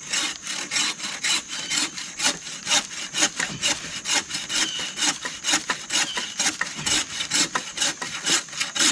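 Hand saw cutting through a wooden log with quick, even back-and-forth strokes.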